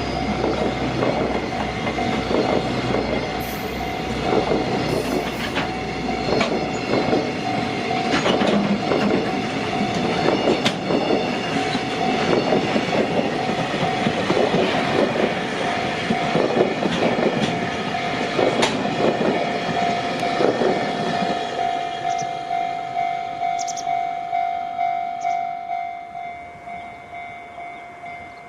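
A JR Freight container train passes close by, its wheels clattering rapidly over the rail joints. The clatter thins and fades after about three-quarters of the way through as the last wagons go by. A level-crossing warning bell rings steadily, about two strokes a second, and is heard clearly once the wheels fade.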